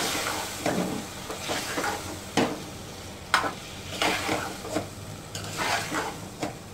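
A metal spoon stirring long beans and potato slices through sizzling masala in an aluminium pressure cooker, the spoon clinking sharply against the pot's side several times.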